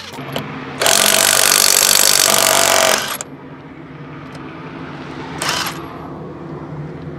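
Cordless 1/2-inch brushless impact wrench hammering for about two seconds as it breaks loose a car's wheel nut, then a short second burst from the wrench about five seconds in.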